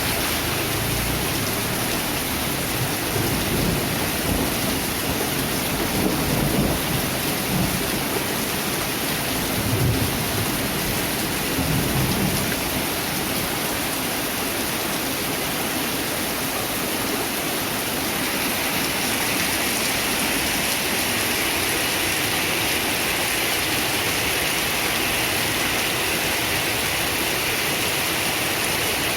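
Heavy rain falling steadily, with low rolls of thunder rumbling through the first half. About two-thirds through, the rain grows slightly louder and hissier.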